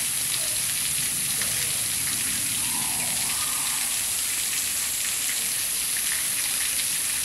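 Steady hiss of running water, with faint small crunches as an Asian small-clawed otter chews its food.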